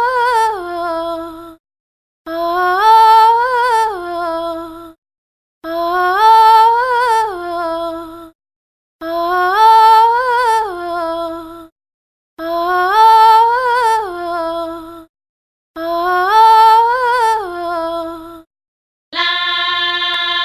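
A wordless sung vocal phrase, rising, wavering and falling back, repeated six times with short gaps between. Near the end a different, steady held note begins.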